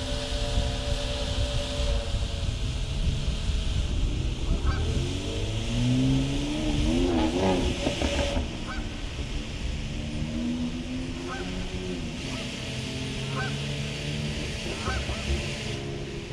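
Electric brushless motors of an RC boat whining, their pitch rising and falling with the throttle. Geese honk in short calls every second or two, over wind noise on the microphone.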